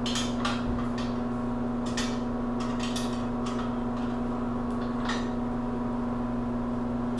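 A few light metal clicks and taps from a steel rivet jig's guide being worked loose and handled, spread over several seconds, over a steady low electrical hum.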